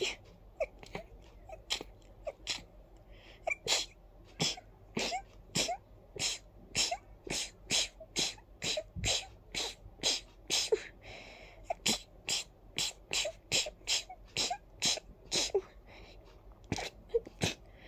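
A person stifling a long fit of sneezes: dozens of short, sharp, held-in sneezes in rapid succession, about two a second, some with a small squeak, with a couple of brief lulls.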